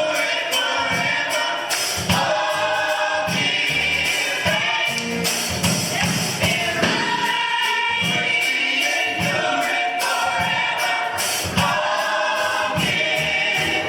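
Gospel choir singing over an upbeat band, with a steady beat from drums and tambourine.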